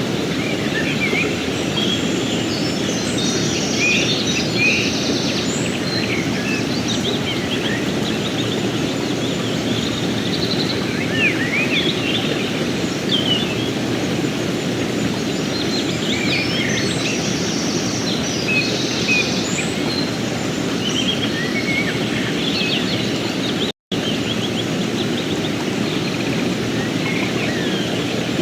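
Fast mountain river rushing over rocks, a steady, even water noise, with birds chirping and singing over it. The sound cuts out for a split second near the end.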